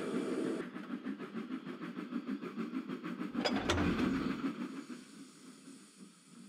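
Miniature steam engine pulling wagons: a fast, even rhythm of chuffs and rail clatter, with a louder clank and low rumble about three and a half seconds in, then fading away.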